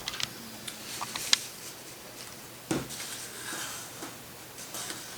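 Paper being handled and creased as a paper-airplane wing is folded: scattered soft rustles and a few crisp crinkles, the sharpest about a second in and near the middle.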